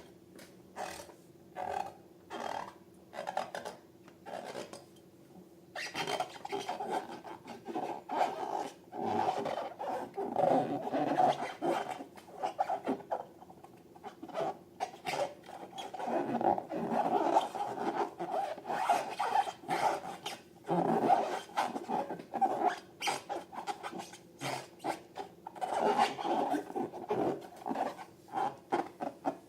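Slime being squished and worked by hand: irregular sticky clicks and squelches, sparse at first and coming thick and fast from about six seconds in.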